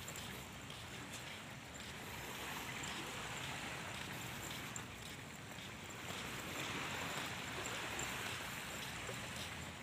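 Steady rushing noise of wind and small waves washing up on the sandy shore, with a low rumble of wind on the microphone; it swells slightly past the middle.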